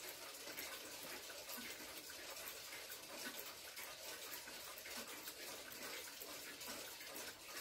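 Weight-driven cuckoo clock ticking faintly under a steady hiss.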